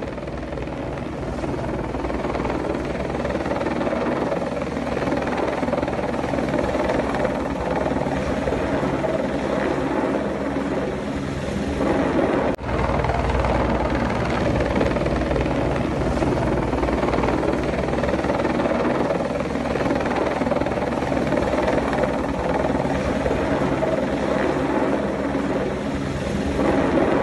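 Helicopter flying overhead with a slung load hanging from a long line, its rotor and engine running steadily. The sound breaks off for an instant about halfway through, then carries on.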